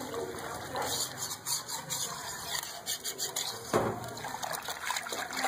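A thin gram-flour-and-yogurt (besan and lassi) batter being stirred and whisked in a pot: liquid sloshing with scattered small clicks, and one louder knock a little under four seconds in.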